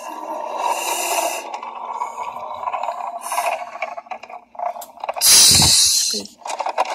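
A person voicing a city bus pulling in: a steady mouth-made engine drone, then a loud hiss just after five seconds in, an imitated air-brake release as the bus stops.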